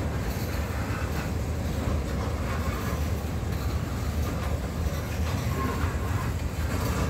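A freight train's tank cars and covered hopper cars rolling past: steel wheels running steadily on the rails in a continuous low rumble.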